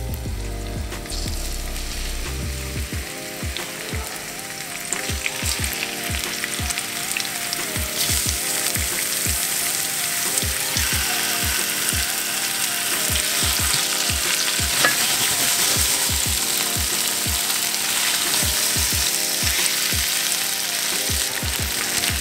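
Pompano fillets sizzling as they fry in hot olive oil in a nonstick frying pan. The sizzle grows louder a few seconds in as more fillets are laid in.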